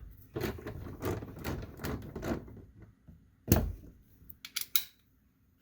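Socket ratchet clicking in short runs as the two 10 mm bolts holding the door glass to the window regulator are loosened, with one louder knock about three and a half seconds in and a few lighter clicks after it.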